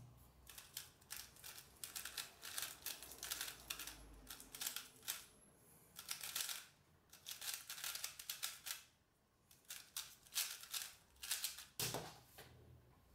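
Gan 356i magnetic 3x3 speedcube being turned fast through a speed solve: rapid, irregular clicking and clacking of the plastic layers, with a short lull about three quarters through. A heavier knock near the end as the solved cube is set down on the desk.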